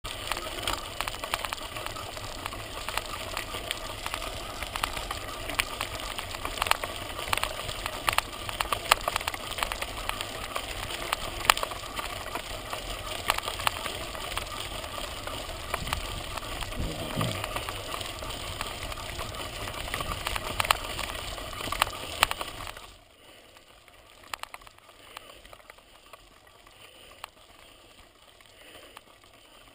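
Mountain bike rolling over a gravel dirt track: tyres crunching on loose stones, with a dense rattle of many sharp clicks from the bike and its camera mount. About 23 seconds in it suddenly turns much quieter, leaving faint scattered ticks.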